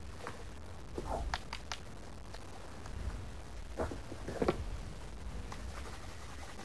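Quiet outdoor ambience: a low steady rumble with a few soft clicks and rustles, in two small clusters about a second in and about four seconds in.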